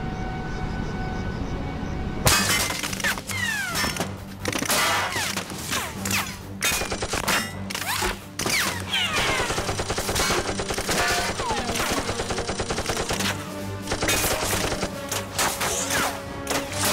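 Rapid bursts of automatic gunfire begin about two seconds in and go on almost without pause, with short falling whistles among the shots, over a steady background music track.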